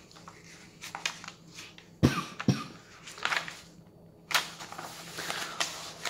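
Paper pages being handled and turned: irregular rustling, with two sharp crinkles about two seconds in and more rustling near the end.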